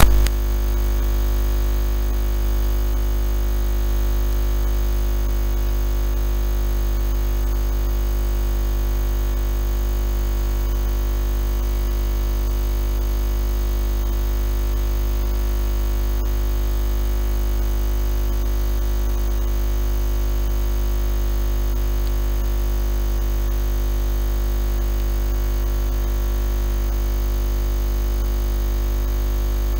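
A loud, steady hum with a deep low drone and several fixed overtones. It cuts in suddenly at the start and does not change.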